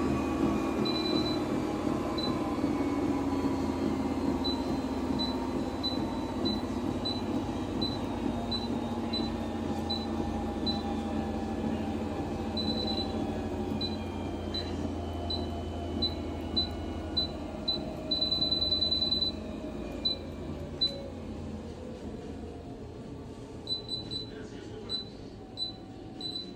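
Electric treadmill running with a motor hum whose pitch slowly falls, while its control panel gives a string of short high beeps about every half second and one longer beep about two-thirds of the way through.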